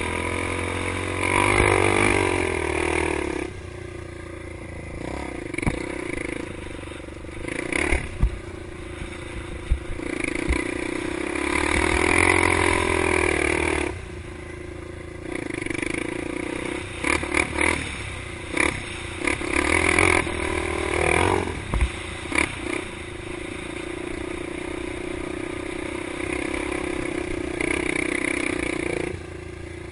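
Honda ATC 350X three-wheeler's single-cylinder four-stroke engine revving up and easing off again and again while riding over sand dunes, with louder pulls about two seconds in, around twelve seconds and around twenty seconds.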